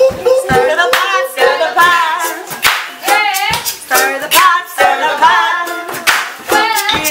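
Voices singing an informal song over ukulele strumming, with hand claps keeping the beat.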